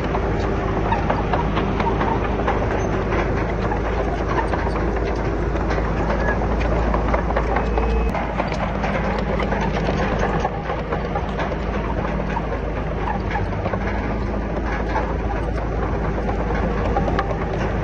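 Komatsu D31PX crawler bulldozer's diesel engine running steadily, with constant clanking and clattering from its steel tracks.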